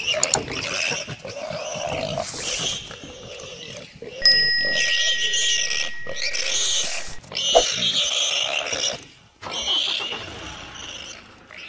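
Lions fighting: repeated harsh growls and snarls in bursts of about a second. About four seconds in, a sharp high ringing tone starts and carries on for about three seconds.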